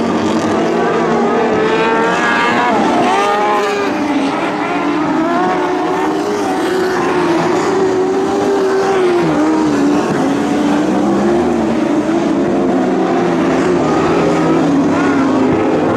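Several Lightning Sprint cars racing on a dirt oval, their high-revving engines rising and falling in pitch as they go through the turns and down the straights, with a few engine notes overlapping at once.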